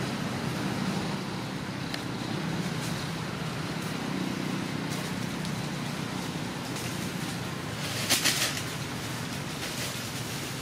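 Steady low background rumble, with a short rustling crackle about eight seconds in.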